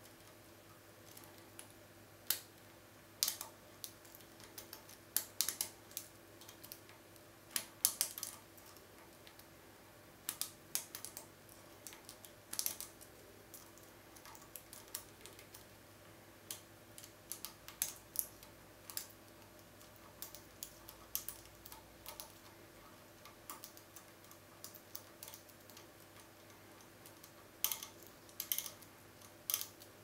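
Small metallic clicks and scrapes of a hook pick working the wafers of a Bricard Bloctout wafer cylinder held under a tension wrench, coming irregularly in short clusters.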